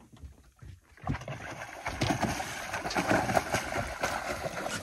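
Water sloshing and splashing against a fishing boat, with wind on the microphone. It is faint for the first second, then grows louder and stays rough and uneven.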